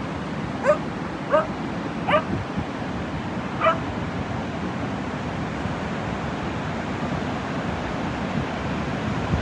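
A dog giving four short, rising yips in the first four seconds, over the steady rush of surf.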